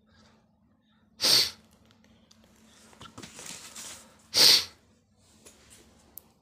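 Paper and books being handled: two short, loud swishes of pages being flipped, about three seconds apart, with crackly paper rustling between them.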